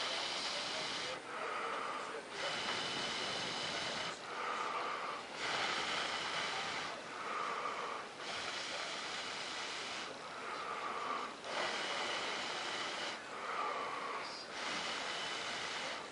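A person breathing close to the microphone, in and out in an even rhythm, with each breath lasting about a second to a second and a half.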